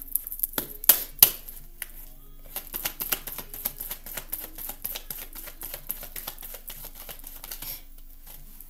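A deck of tarot cards being shuffled by hand: a few sharp snaps in the first two seconds, then a long run of quick, dense card clicks that stops near the end.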